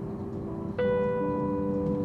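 Background music of soft, sustained piano-like notes, with a new note struck a little before the middle, over a low steady rumble.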